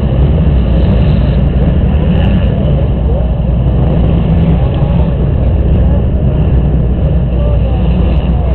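Several dirt bike engines running, revving up and down in short rises and falls over a heavy steady rumble. The sound is picked up by a helmet-mounted camera.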